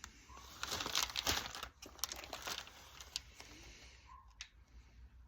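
Packaging being handled: crinkling and rustling with small clicks and taps, busiest in the first couple of seconds, then sparser.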